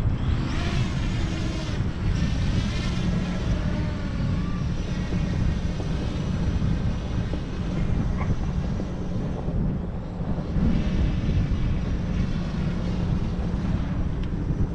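Camera drone's propellers whining, the pitch wavering up and down, over a constant low rumble of wind on the microphone.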